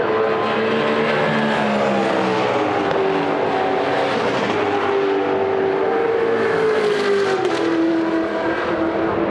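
Several V8 racing saloon cars running hard together, their engine notes overlapping and gliding slowly up and down in pitch. The loudest engine note drops in pitch near the end.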